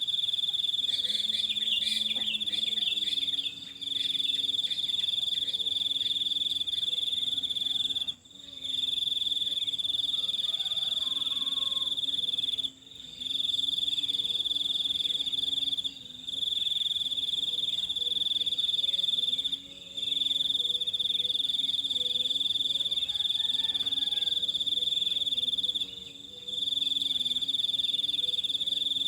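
A high, steady insect trill runs almost nonstop, breaking off briefly every three to six seconds. A bird gives a quick run of chirps in the first few seconds.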